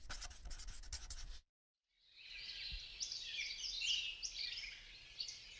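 A scratchy writing sound of quick pen strokes for about a second and a half. After a short silence, a flock of small birds twitters and chirps busily.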